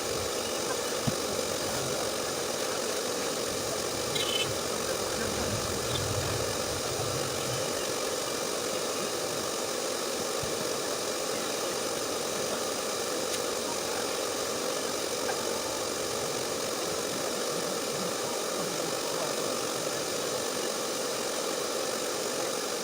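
A steady machine hum with hiss, unchanging throughout, with a couple of faint ticks a few seconds in.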